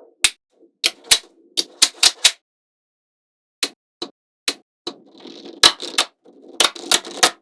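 Small magnetic balls snapping together with sharp clicks, in irregular bursts of a few clicks, with a pause of about a second in the middle. Softer rattling of balls shifting against each other runs between the clicks near the end.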